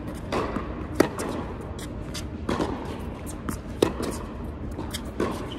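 Tennis rally on an indoor hard court: sharp pops of racquet strings hitting the ball, the loudest about two-thirds of the way through on a near forehand, with ball bounces and shoes shuffling on the court between shots.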